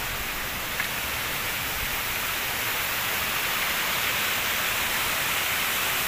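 Mountain stream rushing over rocks: a steady hiss of falling water that grows slightly louder.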